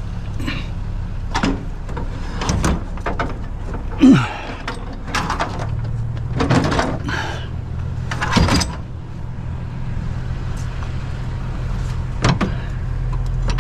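A partly dismantled basketball hoop being handled and loaded into a truck bed: repeated knocks, scrapes and clatters, one sharp knock about four seconds in.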